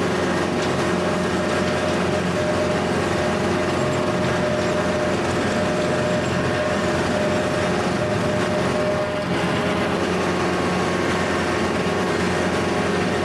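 Kubota L4701 tractor's diesel engine running steadily under load while driving a Countyline brush hog (rotary cutter) through tall grass. There is a brief dip and a small change in tone about nine seconds in.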